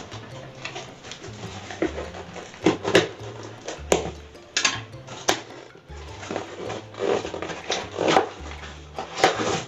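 A small cardboard box being opened by hand: packing tape peeled and flaps pulled and scraped, in a series of short rustling, ripping bursts. Background music with low bass notes plays underneath.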